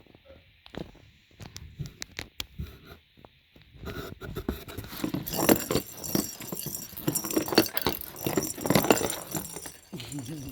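Kitten at play: scattered light taps and clicks, then from about four seconds in a louder, busy run of scratching, scrabbling and knocking.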